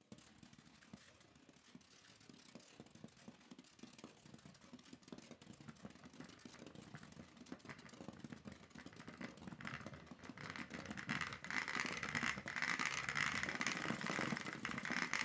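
Small high-speed ~3 lb robot spinning in place, its ODrive-driven brushless motors and tires making a rattling whir that grows steadily louder as it spins faster.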